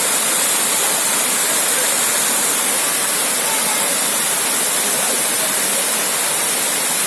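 Waterfall rushing, a loud and steady wash of falling water that does not change.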